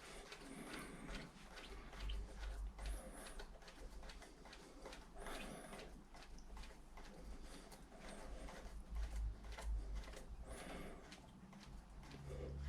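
Faint, irregular scrapes, clicks and handling knocks of a hand screwdriver driving the fixing screws of a wall switch plate into its metal back box.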